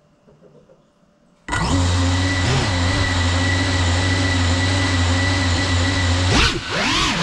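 Brushless motors of a Geprc Cinelog 35 ducted FPV drone spinning up abruptly about a second and a half in and running steadily with a whine. Near the end the pitch swings up and down as the throttle is worked.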